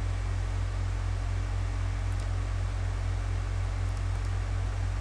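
Steady low hum and hiss of the recording's background noise, with a thin steady tone above the hum and a few faint clicks about two and four seconds in.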